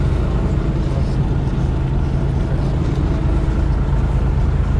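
Fishing boat's engine running steadily: a constant low drone with no change in pitch or level.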